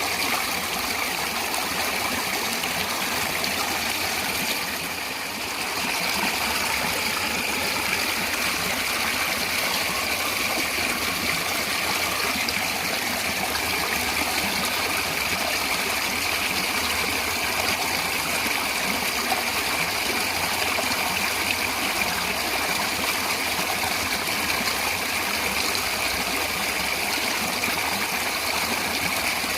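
Steady rush of a natural stream of running water, with a slight dip in level about five seconds in.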